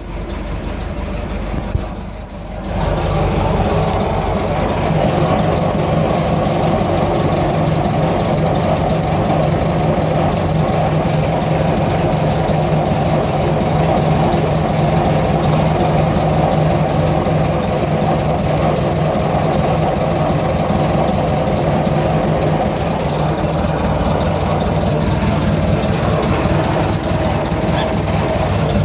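Vehicle engine idling with a fast, even ticking running through it, which the owner treats as a suspicious noise. It gets louder about two and a half seconds in, then holds steady.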